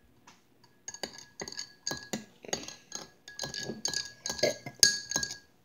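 Small metal spoon stirring chocolate milk in a drinking glass, clinking rapidly against the glass's side, with a faint ringing from the glass. It starts about a second in and stops just before the end.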